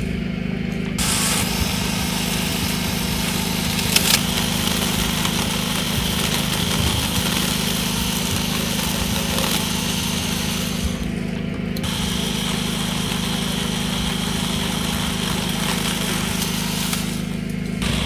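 WORX cordless electric pole pruner running steadily with its motor humming while its chain saws through olive branches. The cutting noise drops away briefly three times, about a second in, around two-thirds of the way through and just before the end, while the motor keeps running.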